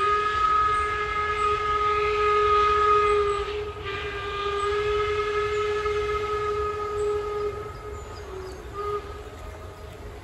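Train horn sounding a long two-note chord, broken briefly about four seconds in and stopping about eight seconds in, then a short final blast. A low rumble of the train running lies underneath.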